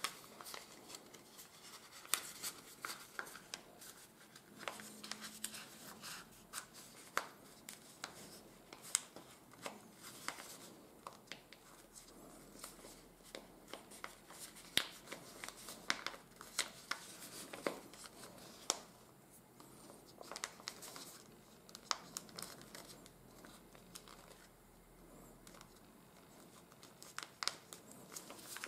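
Folded sheets of 80 g/m² A4 office paper being creased and pressed by hand: faint rustling with many irregular sharp crackles.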